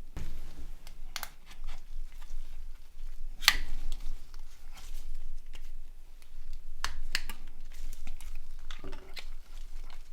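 Small plastic clicks and snaps with light handling noise as a mobile phone is taken apart by hand. The sharpest snap comes about three and a half seconds in, and two more come close together near seven seconds.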